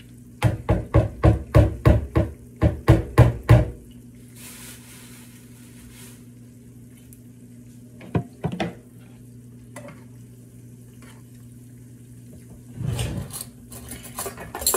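A metal spoon stirring in a bowl, knocking against its sides in about a dozen quick strokes, then a few more utensil-and-dish knocks and a longer clatter near the end. Oil sizzles faintly under a frying conch fritter.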